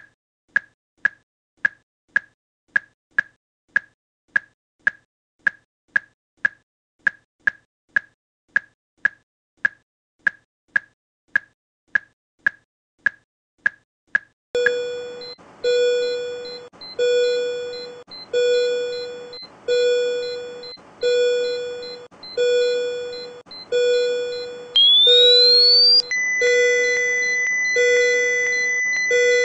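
Simulated cardiac monitor beeping with each heartbeat, short high beeps about two and a half a second at a rate of 150. About halfway the beeps give way to a repeating alarm tone about once a second. Near the end a rising charging whine lasts about a second and a half, then a steady high tone holds: the defibrillator charged at 300 joules and ready to shock.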